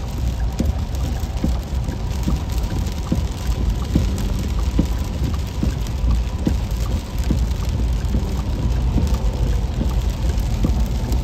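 Heavy rain hitting a car's windshield and body, heard from inside the cabin while driving, over a steady low road rumble. A soft knock repeats a little under once a second.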